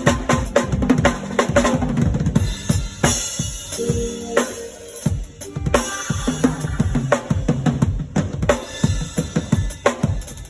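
Drum kit played in a fast, busy rhythm during a live sound check, with held low pitched notes from another instrument underneath.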